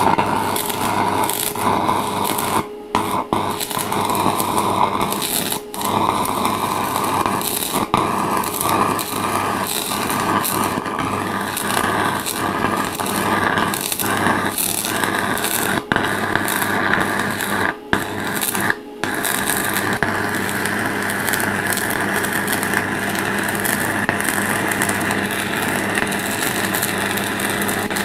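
Stick (MMA) welding arc from a small inverter welder, a continuous crackling sizzle as the electrode is run along 2 mm square steel tube. The arc breaks off for a moment several times and strikes again.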